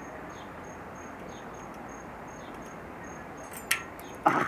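Insects chirping steadily, a high, evenly repeated pulse about three times a second, over a faint background hiss. Near the end a sharp click and then a louder clatter of knocks break in.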